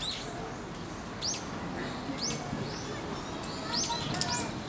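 Bird chirping: short, high chirps, one at the start, a pair about a second and a half in and a quick run of three near the end, over a low background murmur.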